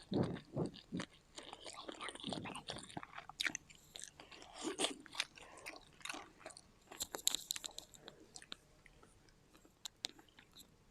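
Close-up chewing and biting of sushi: irregular wet mouth smacks and clicks, with a louder, sharper cluster about seven seconds in.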